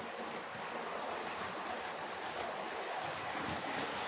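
Tri-ang Hornby 00-gauge model tank locomotive hauling coaches, its small electric motor and wheels on the track making a steady, even running noise.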